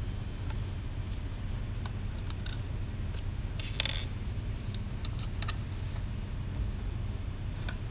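Small clicks and ticks of a T-handle Torx driver turning screws out of a plastic motor handle and casing, with one louder, brighter clatter near four seconds in, over a steady low hum.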